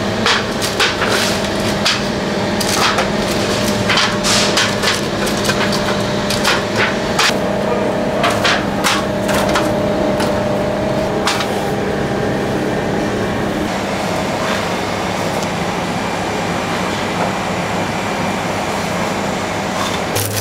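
Bakery workroom noise: a steady machine hum under a string of sharp knocks and clatter, which thins out after about twelve seconds.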